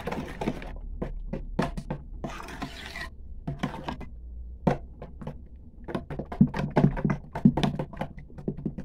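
A utensil stirring thick egg, sugar and cream batter in a large enamel basin. It makes quick, irregular clicks and scrapes against the enamel.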